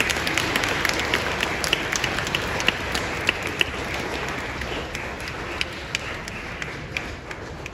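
Congregation applauding: a dense patter of many hands clapping that slowly dies down toward the end.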